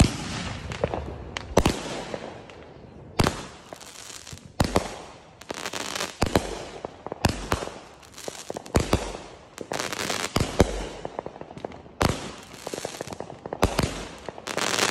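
A 'Show Starter' box firework (a multi-shot cake) firing its shots one after another, about one a second. Each launch thump is followed by the crackle of the shot's sparkling tail and burst.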